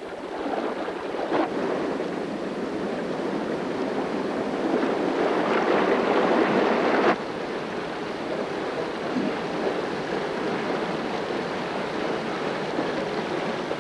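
Water rushing down the wooden chute of a water mill as a steady roar. About seven seconds in it drops suddenly to a lower, steady rush.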